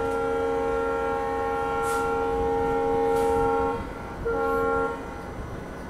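Diesel locomotive horn, a WDM-3A's, sounding its chord of tones as a departure signal: a long blast that stops a little before four seconds in, then one short blast.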